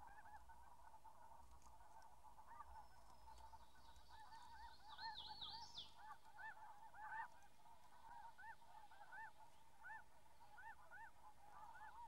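Faint chorus of a flock of snow geese honking, many short overlapping calls, with a brief run of higher chirps about five seconds in.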